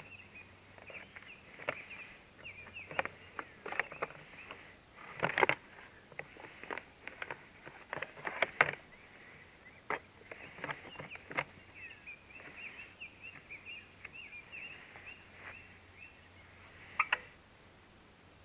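Scattered knocks and clicks of parts being handled and pushed into place as the aftermarket plastic gas tank is fitted onto the motorcycle, with faint bird chirping in the background.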